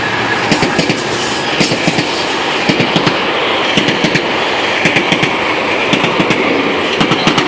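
GO Transit bilevel passenger coaches passing at speed on the platform track: a steady rush of rolling train noise with many sharp wheel clacks, several a second.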